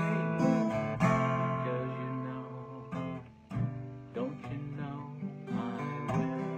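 Acoustic guitar strummed, with a harmonica played from a neck holder carrying the melody; the playing drops off briefly a little past halfway, then resumes.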